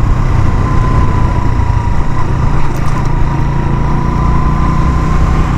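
Suzuki GS 150 SE's single-cylinder 150 cc engine running at a steady cruise under way, mixed with wind rushing over the helmet-cam microphone. A thin, steady whine sits above the engine sound throughout.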